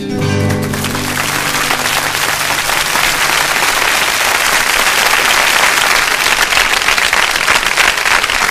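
Audience applause building steadily louder at the end of a song. The song's last guitar chord dies away in the first second.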